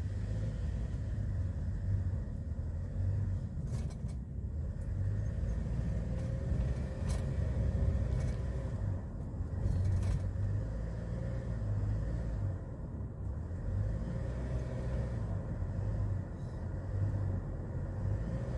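Hyundai Porter II truck's diesel engine and road noise heard from inside the cab as it pulls away and drives on, a steady low rumble.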